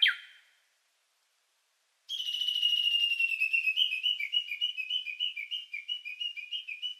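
A high whistling sound effect: one long note that falls slowly, then a run of quick falling chirps, about three a second, bird-like in character. A brief loud rising sweep sounds right at the start.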